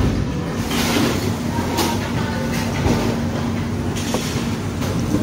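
Restaurant background noise: a steady low rumble with a faint hum and a few short clicks and clatters of tableware.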